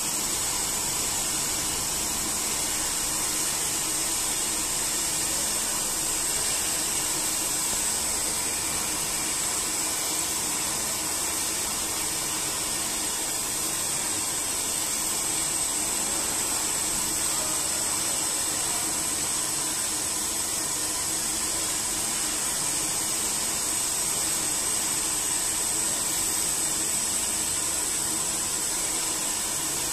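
Twin opposed face-milling heads of a GooDa TH-460NC duplex milling machine cutting both sides of a steel block at once: a steady, high-pitched hiss of the cut over a low machine hum.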